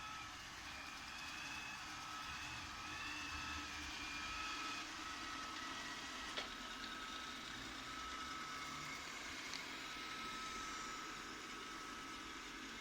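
Robot vacuum cleaner running: a steady motor hum and hiss with a thin high whine, and one short click about six seconds in.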